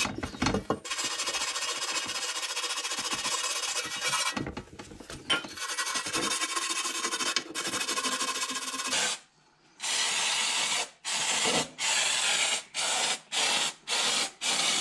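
Wire brush scrubbing an engine part clean. It is a steady scrubbing for several seconds with a brief break. After a moment of silence it comes as short back-and-forth strokes, about two a second.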